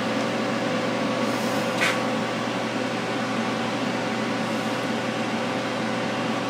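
Steady hum of an electric fan running, carrying a few fixed tones, with one light click about two seconds in.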